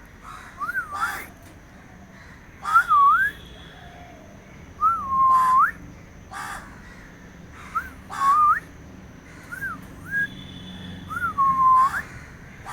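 A bird giving repeated whistled calls, about six phrases every two seconds or so. Each phrase is a quick up-and-down slur, and some hold a low note before ending in a sharp upward sweep.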